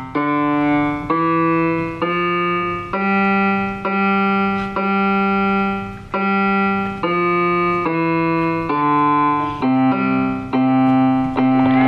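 Electronic keyboard with a piano voice played one note at a time, a slow, simple melody of about a note a second with short gaps between notes, moving up and down in small steps: a beginner practising a five-finger piece.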